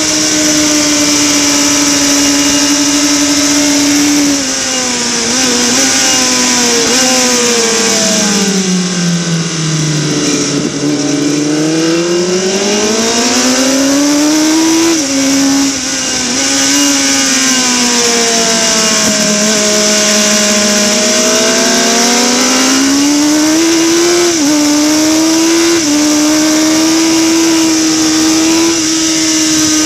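Harris Yamaha racing motorcycle's engine heard from onboard, held at high revs and then dropping away for several seconds as the bike slows. The revs climb back in steps as it changes gear, dip once more, then rise through quick upshifts to a steady high pitch near the end. A steady rush of wind on the bike-mounted microphone runs under it.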